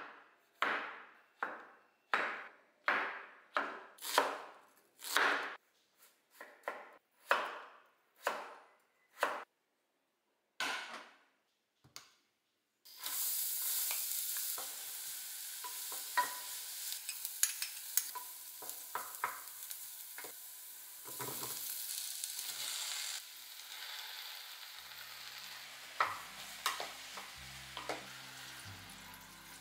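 A chef's knife chops mushrooms on a bamboo cutting board in sharp, regular strokes, one to two a second. It stops about twelve seconds in. Then onion and garlic sizzle in butter in a saucepan, with scattered clicks from a wooden spatula stirring.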